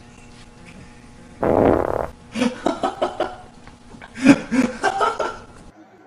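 A puppy's fart: one loud, half-second blast about a second and a half in, followed by several bursts of laughter.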